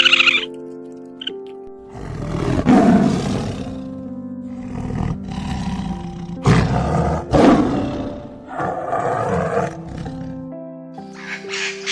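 A large animal gives about four loud, rough calls, one after another, over background music that holds sustained notes.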